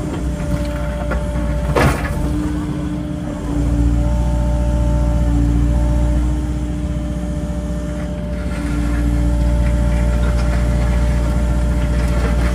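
Excavator's diesel engine running under load, its loudness swelling and easing in long waves, with one sharp knock about two seconds in.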